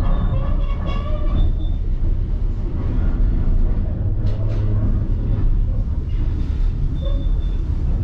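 Passenger train running along the track, heard from aboard: a steady, loud rumble of the cars and wheels.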